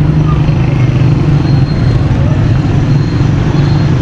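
Steady, loud low engine rumble with street noise.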